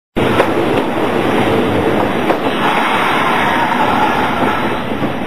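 Hitachi Electric Railway electric train: a steady rumble with a few sharp clicks and a faint whine that swells and fades in the middle.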